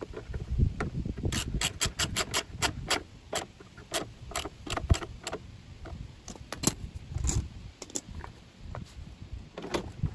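Socket ratchet clicking as a screw is driven into a lawn mower's plastic baffle: a quick run of clicks a little over a second in, then scattered clicks with a few low knocks.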